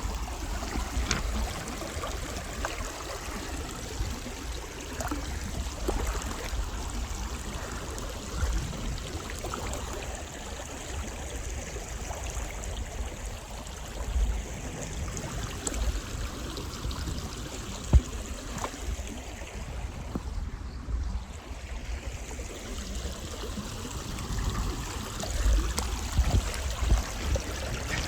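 Creek water flowing steadily, with scattered small clicks and low bumps and one sharp knock about two-thirds of the way through.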